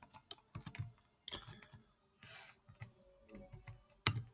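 Computer keyboard keys being typed in irregular short runs of clicks, with one louder key click near the end.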